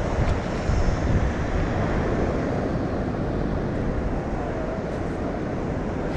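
Wind buffeting the microphone over a steady wash of sea surf, with a few stronger gusts about a second in.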